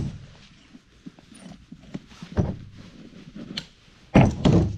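A few dull knocks and handling noises from a pair of resealed boots being turned over and set down, with the two loudest thumps near the end.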